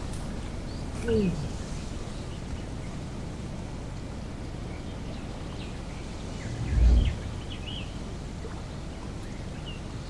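Steady wind rumble on the microphone with scattered faint bird chirps. A short falling sound comes about a second in, and a dull low thump near seven seconds.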